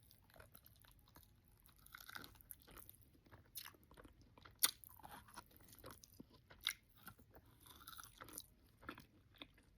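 Faint, close mouth sounds of a person chewing a mouthful of oxtail meat: wet smacks and small chewing clicks at irregular intervals, with a sharper smack a little before the five-second mark and another near seven seconds.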